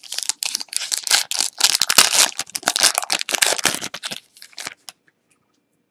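Crinkling and rustling of a foil trading-card pack wrapper being handled along with the cards, dense crackles for about five seconds that stop near the end.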